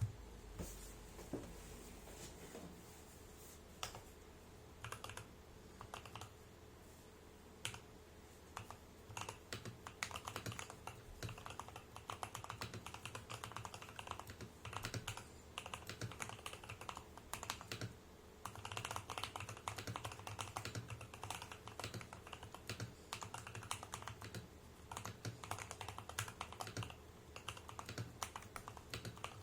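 Typing on a 75% custom mechanical keyboard with Jwick tactile switches, a polycarbonate plate, a tape mod and MDA-profile keycaps: a few separate keystrokes at first, then fast runs of typing from about ten seconds in.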